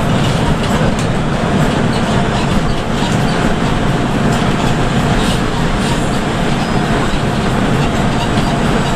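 Steady engine and road noise inside an intercity coach cruising at highway speed: a continuous low drone with no let-up.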